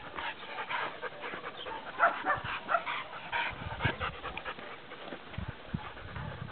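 Dogs panting as they walk, mixed with short, irregular scuffs and crunches of steps on a dirt track.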